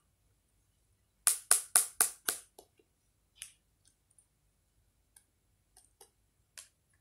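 Plastic containers being handled: a quick run of about five sharp clicks and taps a little over a second in, then scattered fainter taps.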